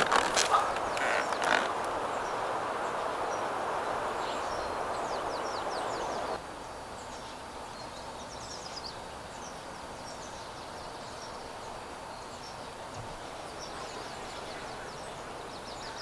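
Outdoor ambience of small birds chirping. For the first six seconds or so a steady rushing noise and a few clicks lie under the birds; then it cuts off abruptly, leaving quieter ambience with the chirps and a faint, thin, high steady tone.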